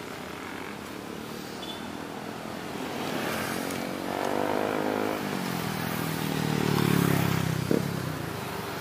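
A motor vehicle's engine passing close by in street traffic, growing louder and dropping in pitch over the second half, loudest near the end before easing off. A single sharp click comes just after the peak.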